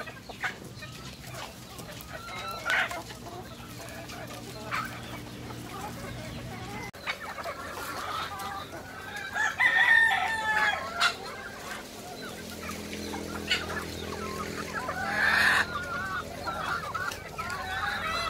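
A flock of free-range chickens clucking, with a rooster crowing.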